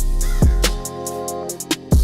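Background music with drums, bass and sustained instrument notes; the beat drops out briefly near the end before a strong drum hit comes back in.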